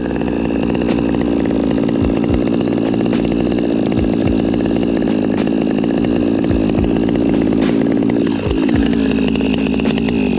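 Stihl chainsaw running steadily at high revs; about eight seconds in the revs fall away to a lower running speed.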